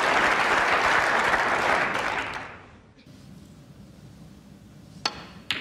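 Snooker audience applauding, the applause dying away about halfway through. Then a hushed arena and, near the end, two sharp clicks of cue and snooker balls as a shot is played.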